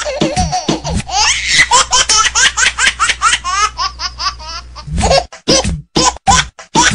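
A laughing ringtone: high-pitched giggling laughter that starts about a second in, after a bit of music, and breaks into short, evenly spaced bursts of laughter near the end.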